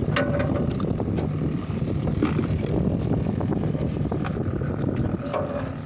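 Steady low rumble on board a fishing boat, with wind on the microphone and a few small clicks and knocks.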